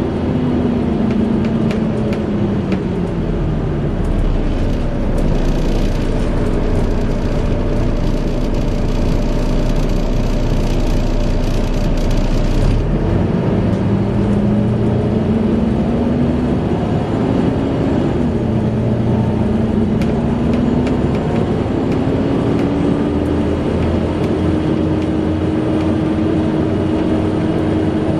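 Volvo B7TL bus running, its engine and cooling fan giving the whine that enthusiasts call a 'hoover'. The whine falls in pitch about two seconds in, holds low over a low hum, then rises again about halfway through and settles higher near the end, as the bus slows, idles and pulls away.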